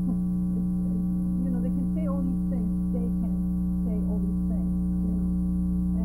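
Steady electrical hum, several even tones stacked together, drowning out a faint conversation beneath it.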